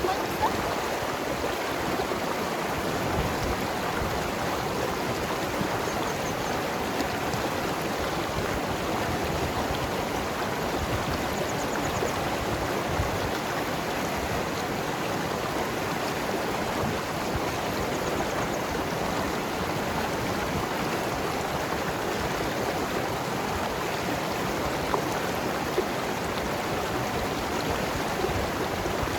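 Mountain river flowing over rocks: a steady rushing and gurgling of water.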